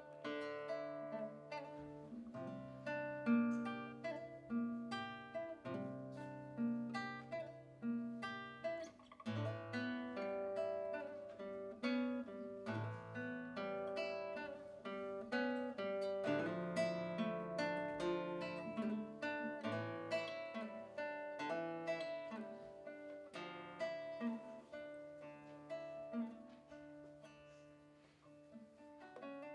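Solo nylon-string classical guitar played fingerstyle: a study of plucked notes over held bass notes, growing softer near the end.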